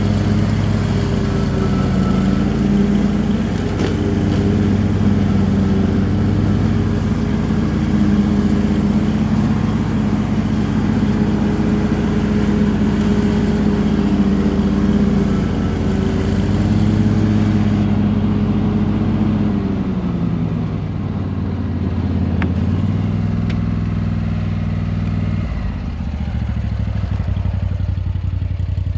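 Cub Cadet XT3 GSX garden tractor running steadily while mowing tall grass and weeds with its 42-inch deck. About two-thirds of the way through, the engine note drops to a lower pitch and holds there.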